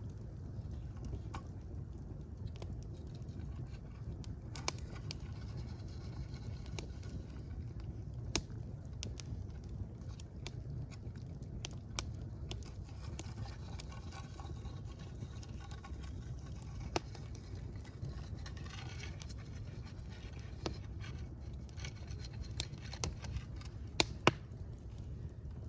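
Fire burning: a steady low rumble with scattered crackles and a few sharp pops, the two loudest close together near the end.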